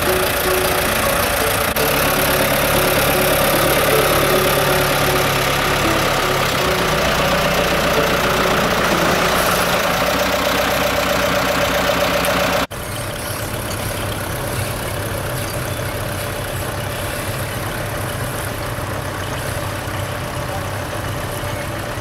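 Tractor engine running steadily. About halfway through, the sound cuts off suddenly and switches to a quieter, steady engine.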